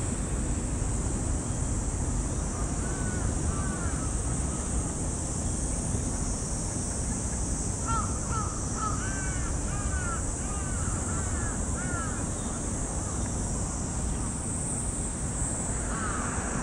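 Crow cawing: a couple of calls about three seconds in, then a quick run of repeated caws from about eight to twelve seconds in, over steady low background noise.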